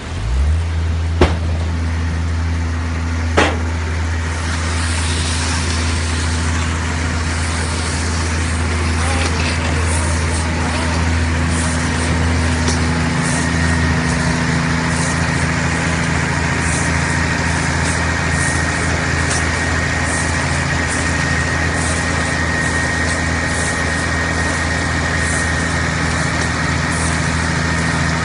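Tractor engine running with a round baler's machinery turning. A low engine hum comes in just after the start and holds steady. Two sharp clicks fall in the first few seconds, and a faint steady high whine and light ticking run through the rest.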